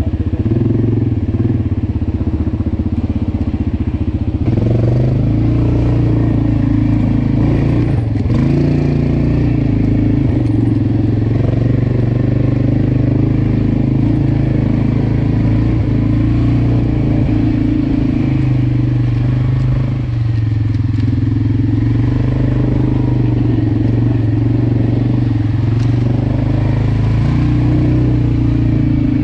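ATV engine running at a steady pace while the quad rolls along a dirt trail, with tyre crackle and clatter over the rough ground and a single knock about eight seconds in.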